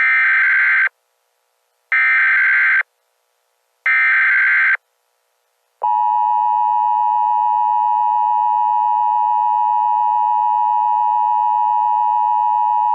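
Emergency Alert System tones: three bursts of digital SAME header data, each about a second long and two seconds apart, then the steady two-tone EAS attention signal starting about six seconds in.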